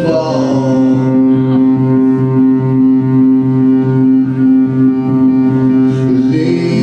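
Live band music in an instrumental stretch without vocals: an upright bass line with a low note pulsing about twice a second under sustained held tones.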